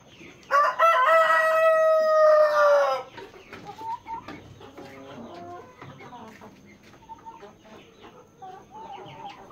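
Ayam kampung (Indonesian native chicken) rooster crowing once, loud, a held call of about two and a half seconds that drops slightly in pitch at the end. It is followed by softer clucking from the hens in the coop.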